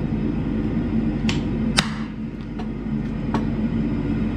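Hammer blows curling a hot metal leaf on the lead top of a repoussé log: about four sharp strikes at uneven intervals over a steady low hum.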